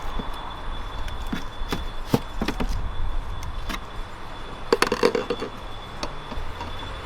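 Street ambience: a low traffic rumble with scattered sharp clicks and knocks, and a louder short clatter about five seconds in.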